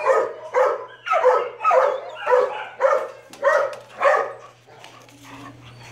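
A dog barking repeatedly, about eight barks at roughly two a second, stopping about four and a half seconds in.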